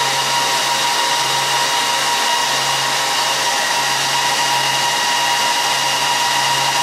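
HP ProLiant ML350 G6 server's cooling fans running at full speed during power-on self-test and power and thermal calibration: a loud, steady rush of air with a high whine over it.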